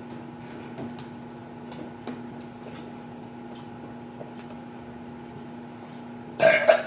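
A steady room hum with faint scattered ticks, then one short, loud burp near the end: a person's attempt in a burping contest.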